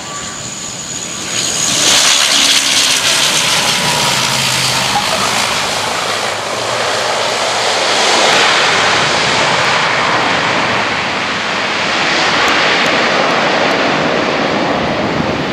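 Twin-turboprop ATR airliner landing and rolling out along the runway. The engine and propeller roar swells sharply about two seconds in and stays loud as the aircraft slows.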